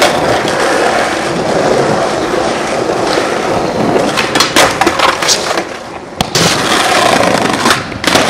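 Skateboard wheels rolling on smooth tiled pavement, with several sharp clacks of the board popping and landing in the second half.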